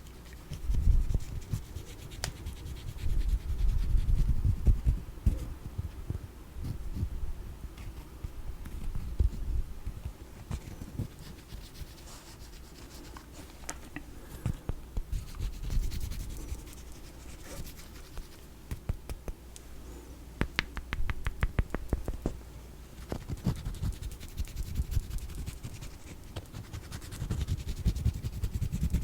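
Close-up scratching and rubbing on small cat-themed trinkets, with soft low thumps from handling. About two-thirds of the way through comes a quick run of sharp clicks, roughly ten a second.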